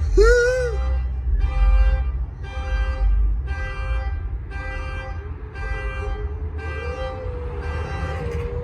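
Vehicle horn honking in a steady repeated pattern, a little more than once a second, over a low engine rumble. A short rising-and-falling tone sounds near the start, and a wavering tone runs under the honks in the second half.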